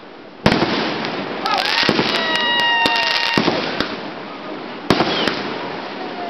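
Fireworks going off close by. A sudden loud bang about half a second in is followed by continuous hissing and crackling, with several more sharp bangs over the next few seconds. A short steady whistle sounds about two seconds in.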